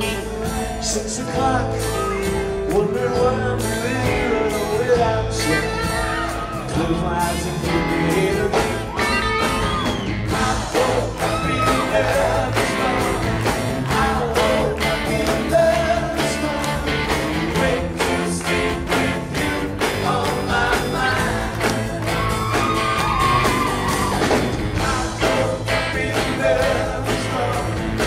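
Live rock band playing a song with a steady drum beat, under a lead singer's vocal.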